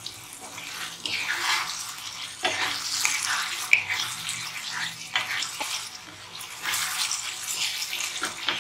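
Wooden spatula stirring and scraping thick tomato masala in a non-stick pan, an uneven run of wet swishes with a few light clicks. The tomatoes are fried and the oil has separated from the masala.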